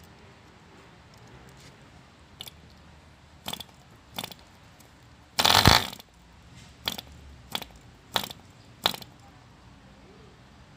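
1948 ED Mk II Competition 2 cc model diesel engine being hand-started by flicking its propeller: a string of single sharp clicks, with one loud half-second burst about halfway through as the engine fires briefly and stops. It is a first start of a long-stored engine that had a stuck piston.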